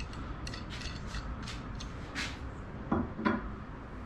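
Light clicks and rattles of a rod holder's hardware being handled and fitted onto a rod rack, several a second, followed by two louder, duller knocks about three seconds in.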